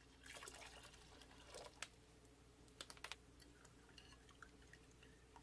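Faint sound of liquid being poured into a glass bowl for about a second and a half, then a metal spoon stirring it, with a few light clinks and taps of the spoon against the glass.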